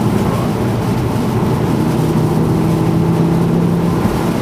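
Car heard from inside the cabin while driving on a wet road: engine running with the hiss of tyres on standing water, and a steady engine note that holds from about halfway through until near the end.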